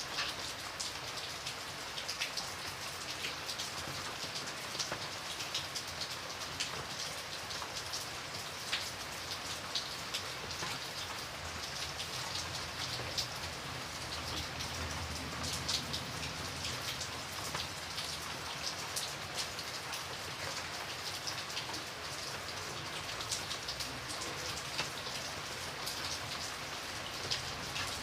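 Steady rain falling, with many individual drops pattering and ticking close by over a constant hiss.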